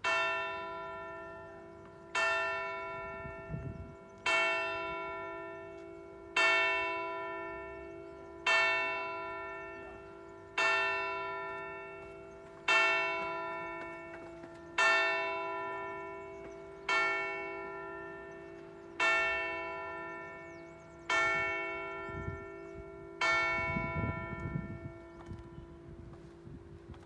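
The largest bell of Fiesole cathedral's six-bell Rafanelli concerto, swung full-circle (a distesa), striking twelve times at an even pace of about one stroke every two seconds, each stroke ringing on and fading before the next; the hum dies away after the last stroke. It is the ringing for weekday noon.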